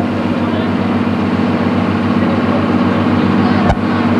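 A tour boat's engine running steadily with a low drone, heard on board, over a steady hiss. A short sharp click about three and a half seconds in, where the recording cuts.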